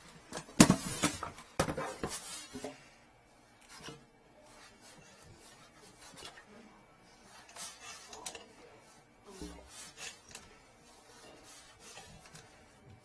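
Handling noise from a drain inspection camera's yellow push cable and reel as the cable is fed into the drain pipe: several sharp clicks and knocks in the first two seconds or so, then faint rubbing and scattered light ticks.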